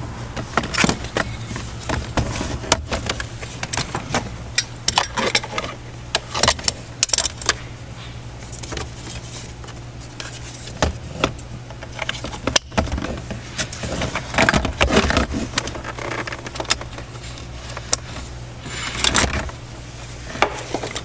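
Irregular clicking and rattling of plastic glove box parts and wire connectors being handled and plugged in, over a steady low hum.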